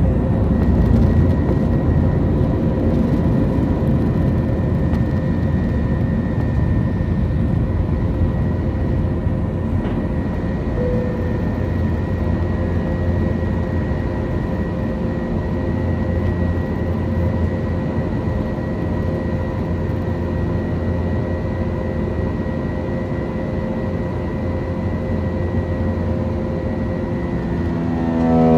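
Airliner engines heard from inside the passenger cabin during takeoff: a steady, loud drone with a low rumble and a constant whine over it, easing slightly as it goes on.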